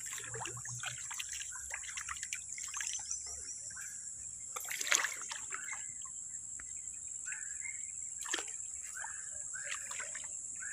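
Shallow muddy water splashing and sloshing irregularly as someone wades and works his hands in it, with one sharper splash about five seconds in. A steady high-pitched insect chorus runs behind.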